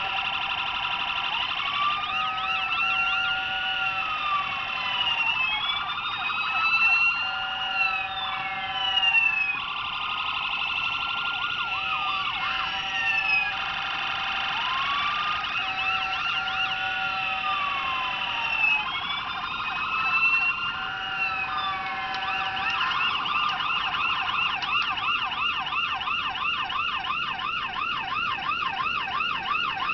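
Electronic siren sounds from the small added siren modules in 1/24-scale die-cast police Tahoe models. Several siren tones overlap, with wails rising and falling, and about two-thirds of the way through a faster warble takes over.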